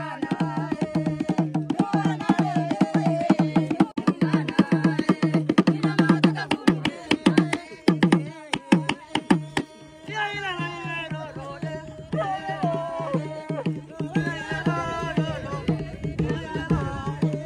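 Chewa ceremonial drumming in fast, dense strokes with a group of women singing over it, music for the masked dance. The drumming thins out about ten seconds in while the singing carries on.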